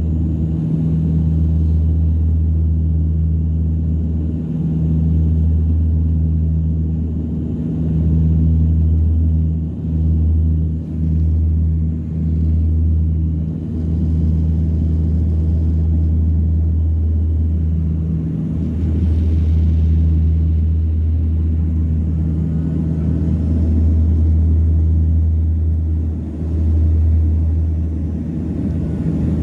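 Cabin drone of a Dash 8 twin turboprop climbing after takeoff: a deep, steady propeller and engine hum heard from inside the cabin, which dips briefly now and then.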